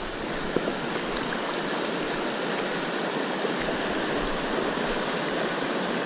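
Creek water rushing steadily over rocks through a shallow riffle.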